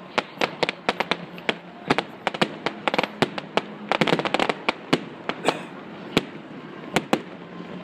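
Aerial fireworks display: a rapid, irregular barrage of sharp bangs and crackles from bursting shells, thickest about four seconds in and thinning to a few single bangs near the end.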